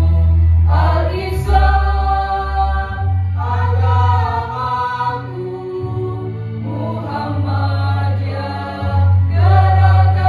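A virtual children's choir singing long held phrases over an instrumental accompaniment with a strong, steady bass.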